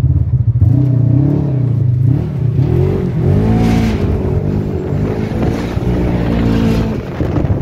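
Polaris RZR side-by-side's engine revving up and down while driving off-road, its pitch rising and falling again and again.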